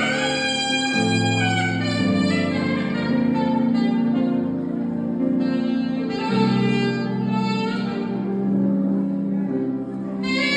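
Music: a saxophone playing a slow melody of long held notes over sustained low chords.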